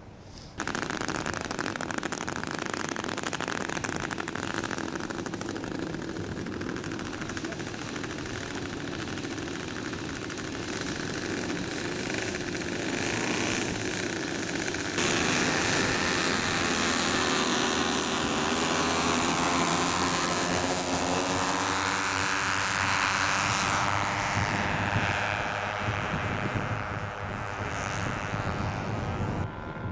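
Four Zenoah 22cc two-stroke petrol engines of a large-scale radio-controlled Handley Page HP42 model running steadily through the take-off run and into flight. The sound comes in abruptly just after the start and grows louder about halfway through. About three-quarters of the way through, the pitch rises and then falls as the model passes.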